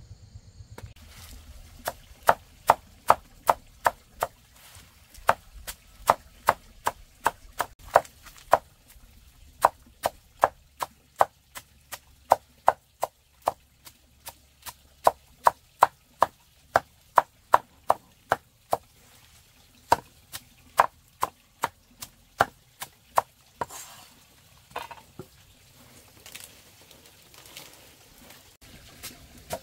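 Cleaver chopping a pile of leafy greens in quick, even strokes, about three a second. The chopping stops for several seconds after about 23 s and starts again at the very end.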